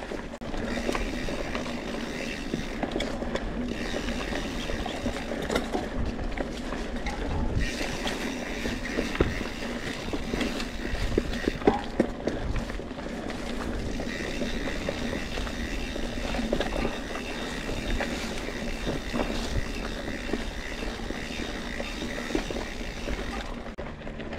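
Scott Spark RC full-suspension mountain bike ridden over dry, dusty singletrack: tyres running on dirt and stones with frequent knocks and rattles from the bike.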